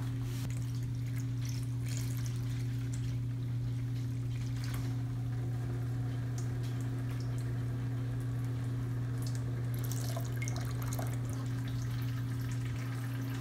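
Grape wine poured into a coffee-filter-lined plastic strainer, trickling and dripping through the filter paper, faint under a steady low hum.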